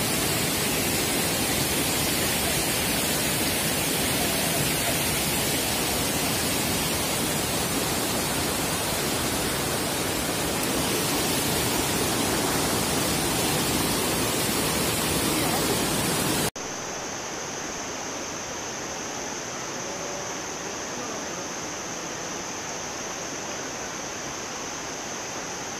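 Waterfall: a loud, steady rush of falling water close by. About two-thirds of the way through it cuts abruptly to a quieter, more distant rush of the falls.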